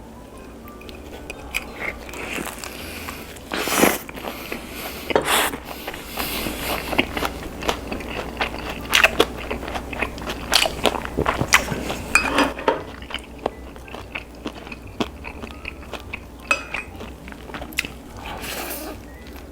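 Close-miked crunching and chewing of a crispy fried chicken drumstick (BHC Bburinkle seasoned chicken) dipped in cheese sauce: sharp bites into the coating, thick in the first half and sparser toward the end.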